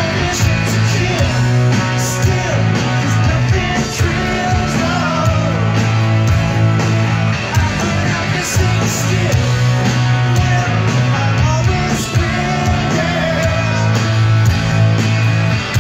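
Live rock band playing loud through a large PA: electric guitars, bass and drums with a lead vocal, heard from within the crowd.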